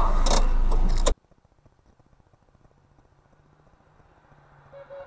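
Car cabin noise from a dashcam: engine and road rumble with a sharp rattling clatter, cutting off abruptly about a second in. Then near silence with a faint low hum, and a short faint beep near the end.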